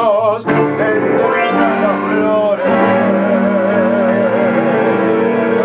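A tango orquesta típica plays live: violins, cello and electric guitar. A male singer sings over them, and about halfway through he holds a long note with a wavering vibrato.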